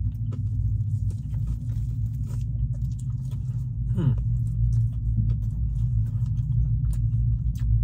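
A person chewing fried food with small, soft clicks, over the steady low hum inside a car. About four seconds in there is a brief falling "mm" from the eater.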